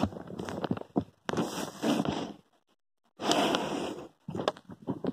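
Rustling and clicking of small objects being handled, in two bursts with scattered clicks near the end.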